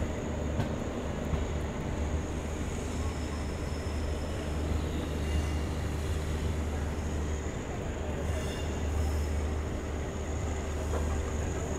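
Steady low rumble of an Indian Railways passenger train, heard from inside a coach.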